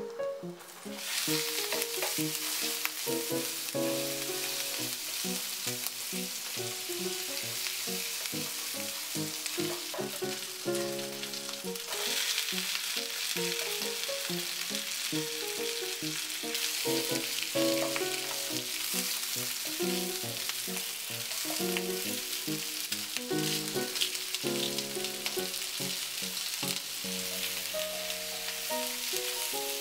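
Minced garlic sizzling in melted butter in a nonstick frying pan. About twelve seconds in it gives way to napa cabbage leaves frying as they are stirred and tossed with a wooden spatula. Light background music plays throughout.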